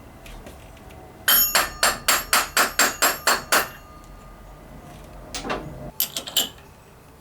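A hammer striking metal: about ten quick ringing blows at roughly four a second, then after a pause three more quick blows near the end.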